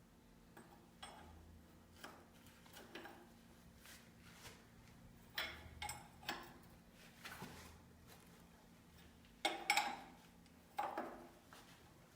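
Irregular metallic clicks and knocks from hand work on a saw-sharpening machine: tools and metal parts being handled, with the loudest knocks in two clusters near the end.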